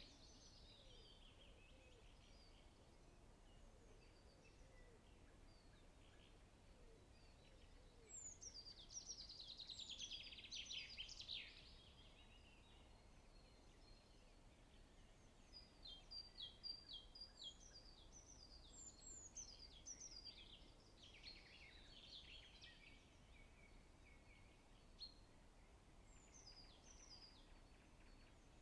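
Faint songbirds singing: a descending trilled phrase about eight seconds in, a run of short repeated notes around fifteen to twenty seconds, and scattered chirps between.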